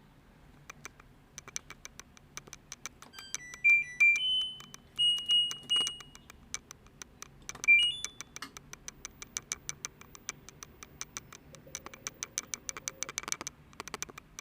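Control panel of an LG direct-drive washing machine being set: rapid, even clicking runs through, with a short tune of electronic beeps of changing pitch a few seconds in, more single beeps after it, and a rising pair of beeps about eight seconds in.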